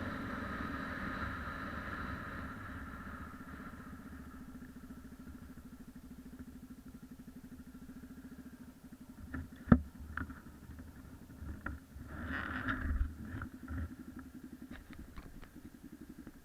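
Yamaha XT 600 single-cylinder four-stroke engine running, fading over the first few seconds to a low, steady idle. A sharp knock comes about ten seconds in, with a few clicks around it and a short rush of noise a couple of seconds later.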